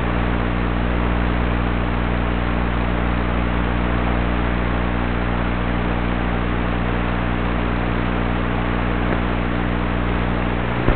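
Steady electrical hum with hiss, unchanging throughout, typical of the audio track of an analog FPV video receiver's recording while the drone sits still.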